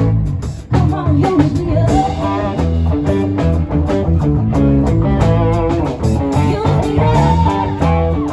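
Live band playing: acoustic guitar, electric guitar and a drum kit, with a steady beat and guitar lines that bend in pitch.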